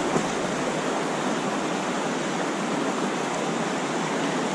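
Fast river current rushing past the bank: a steady, even rush of water.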